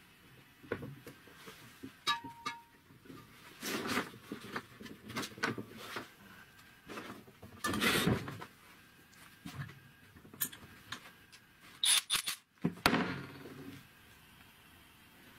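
Gloved hands working brass fittings and a plastic air hose: irregular clicks, knocks and rustles, with the loudest knocks about halfway through and again near the end.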